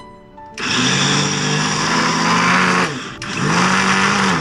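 Electric blender with a small chopper jar pulsed twice, about two and a half seconds and then about a second, its motor spinning up and winding down each time as it grinds soaked chana dal into a coarse batter.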